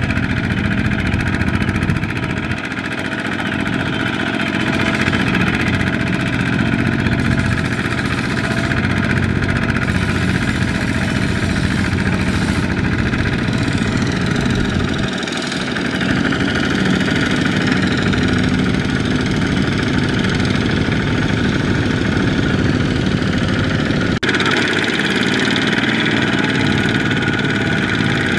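Single-cylinder diesel engine of a two-wheel walking tractor (power tiller) running steadily under load, pulling a loaded trailer through sticky mud.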